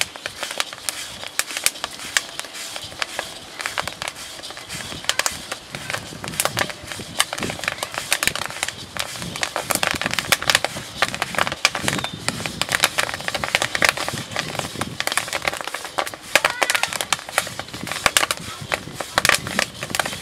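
Corn roasting over an open cooking fire: dense, rapid crackling and popping that runs on without a break.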